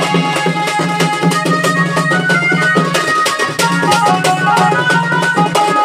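Live traditional folk stage music: fast, dense hand-drum strokes under a melody instrument playing short stepped notes, over a low held note that breaks off briefly about halfway through.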